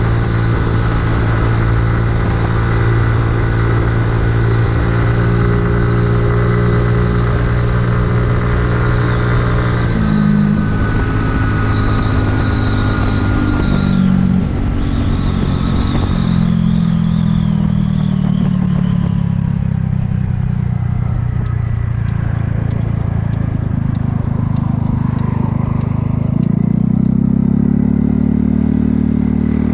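Kymco People 250 scooter engine running steadily under way, then easing off about ten seconds in with its pitch falling, and picking up again with rising pitch near the end. The exhaust leaks have been sealed with JB Weld high-heat epoxy, and the rider finds it sounds quieter, like a normal scooter.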